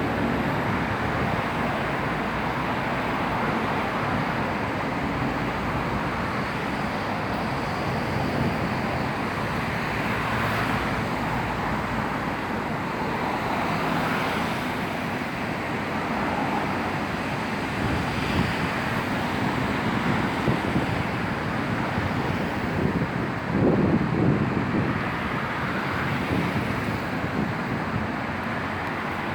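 Steady outdoor rumble of road traffic and wind, swelling louder for a moment near the end.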